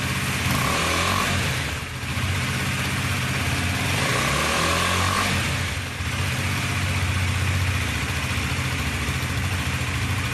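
2017 KTM Duke 250's single-cylinder four-stroke engine running through its stock exhaust. The revs rise and fall a few times.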